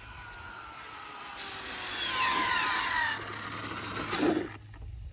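Arrma Infraction V2 RC car's electric motor and drivetrain whining at speed, the whine falling steadily in pitch about two seconds in. It ends with a brief louder rush about four seconds in, then drops off suddenly.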